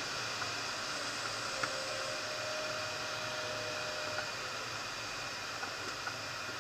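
Steady rush of air over a glider's canopy in flight, heard from inside the cockpit, with a faint steady tone for about two seconds in the middle and a few small clicks.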